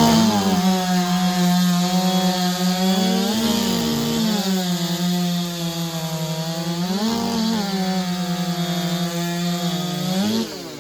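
A 90cc-class race chainsaw's two-stroke engine running at full throttle while cutting a log, pulled down to a steady pitch in the wood. It revs up briefly twice, about three and seven seconds in, as it frees up between cuts, and it drops off sharply near the end as the race finishes.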